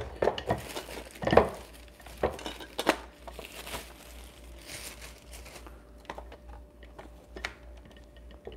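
Thin plastic packaging bag crinkling and rustling in irregular handfuls as a portable coffee maker is slid out of it. The rustles are busiest in the first five seconds or so and thin out to faint handling sounds after that.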